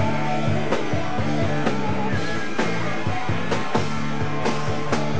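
Live rock band playing: electric guitars and a drum kit with a steady beat.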